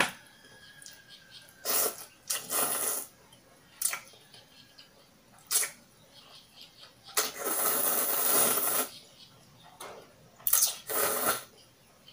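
Someone slurping kimchi ramen noodles: a long, loud slurp about seven seconds in, with shorter slurps before and after it. A few sharp clicks fall between them.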